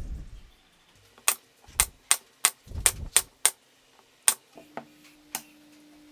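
A series of about ten sharp taps, unevenly spaced, with a low thud near the start and another in the middle. A faint steady hum begins about two-thirds of the way through.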